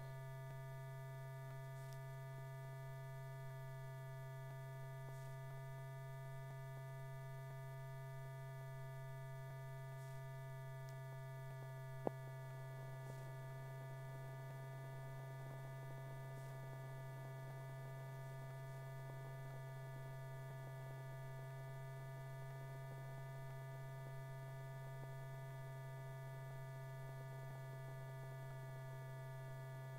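Steady electrical hum on a silent stretch of an old film soundtrack, with a row of fainter steady high tones above it. A single sharp click about twelve seconds in.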